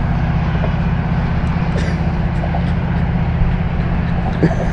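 A motor vehicle's engine running steadily, a low even hum with a few faint clicks over it.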